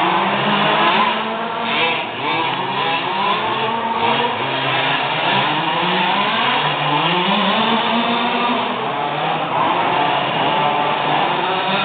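Several large-scale petrol RC buggies' small two-stroke engines revving up and down as they race, their overlapping pitches constantly rising and falling.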